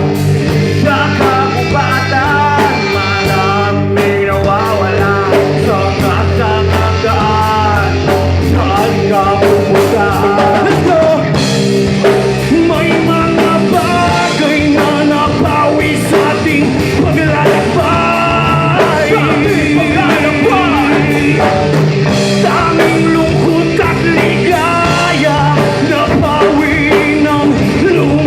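Rock band playing live with a singer: electric guitars, bass guitar and drums under a sung vocal, loud and continuous.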